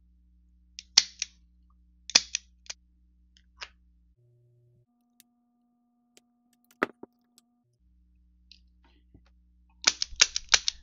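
Sharp metallic clicks from a Smith & Wesson Airweight J-frame revolver being handled as it is reassembled, with a few separate clicks in the first few seconds. Near the end comes a quick cluster of about six clicks as the revolver's action is worked with its new lighter spring kit.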